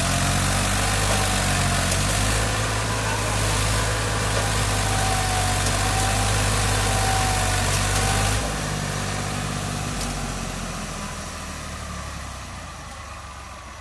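Eicher 380 tractor's diesel engine running hard under load as it strains to pull a loaded trolley through soft ground. About eight seconds in, the revs drop sharply and the engine sound then fades steadily.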